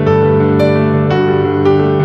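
Background music: a soft, gentle piano piece with sustained chords and notes struck at an even pace.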